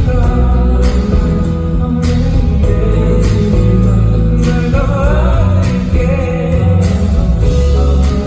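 Band music with a singer over heavy bass and irregular drum hits.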